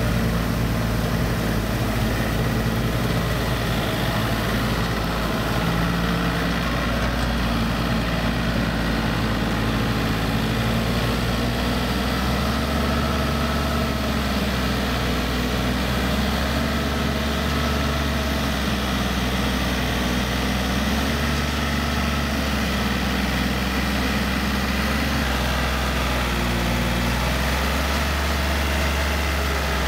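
Yanmar EF393T four-wheel tractor's diesel engine running steadily while it drives a rotary tiller through wet paddy soil, its low hum wavering slightly in pitch under the load.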